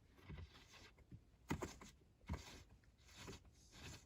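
Faint, scattered clicks and scrapes of hand work: a screw being started into the shifter mounting with a small claw pickup tool, a few short knocks spread across the few seconds.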